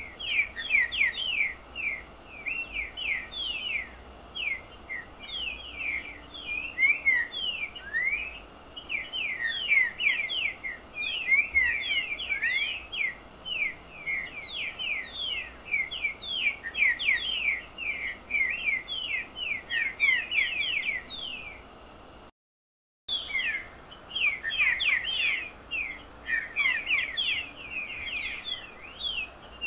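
Picharro singing: a dense, fast run of short downward-slurred whistled notes, several a second, running on without pause, with the sound cutting out for under a second about two-thirds of the way through.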